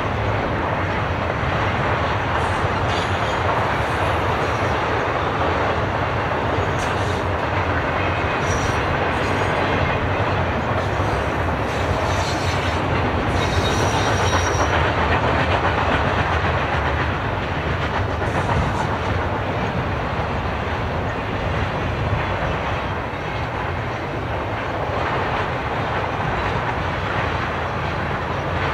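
Union Pacific double-stack container train rolling past on a curve: a steady rumble and clatter of wheels over the rails, with a few brief high-pitched wheel squeals about 9 and 14 seconds in.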